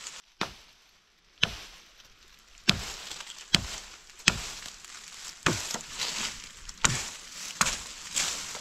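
Repeated chopping strikes of a hand tool, about nine sharp blows roughly a second apart, each followed by a brief rustle.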